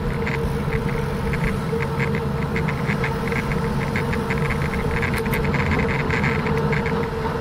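Bicycle riding on asphalt: a steady rumble and vibration from the tyres and frame, with a constant hum and quick, irregular rattling ticks.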